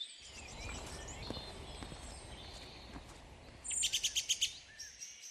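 Songbirds singing in spring woodland, with scattered chirps and warbles. Near the end one bird gives a loud, fast run of about eight repeated notes. A low steady rumble lies underneath until just before the end.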